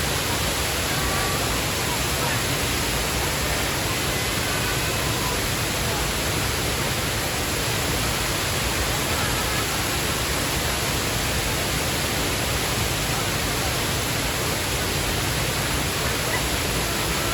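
Waterfall rushing, a steady unbroken roar of falling water.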